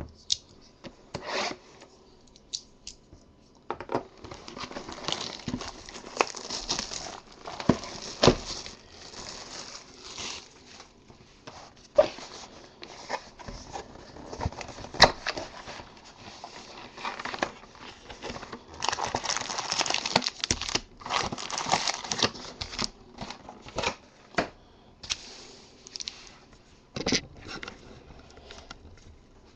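A sealed box of trading cards being opened by hand: plastic wrapping tearing and crinkling, in irregular spells from about four seconds in, with sharp clicks and taps as the box is handled.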